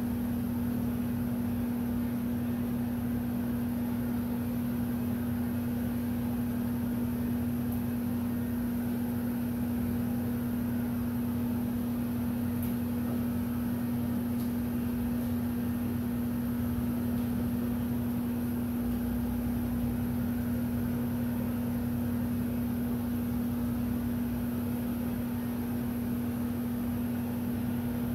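Handheld heat gun running steadily: an even motor hum with a rush of blown air.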